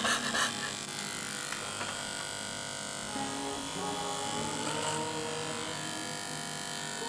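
Corded electric hair clippers buzzing steadily as they cut through thick, curly hair.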